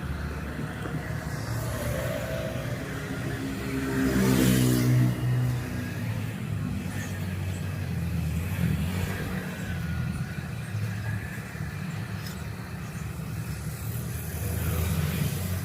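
A motor vehicle engine running with a steady low rumble. It grows louder about four seconds in, with its pitch falling, then settles back.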